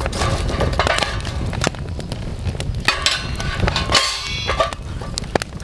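Wood fire crackling with frequent sharp pops in a steel fire pit, and a metal clang about four seconds in as a steel trivet plate is set down on the pit.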